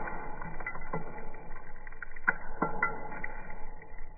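Vacuum cleaner running with a crevice tool on a chrome wand, sucking up dumped dust, lint, glitter stars and confetti. Bits of debris click and rattle up the wand at irregular moments over the steady motor sound.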